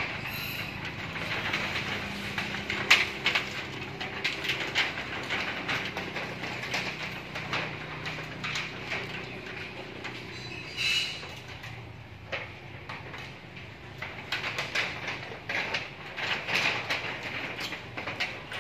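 Macaques' hands and feet clattering on a corrugated metal roof as they run and climb over it: a stream of irregular rattles and knocks, with one sharp loud bang about three seconds in, over a low steady rumble.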